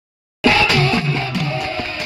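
Music for a kolatam stick dance, starting abruptly about half a second in: a plucked-string melody over a repeating bass line and a steady beat.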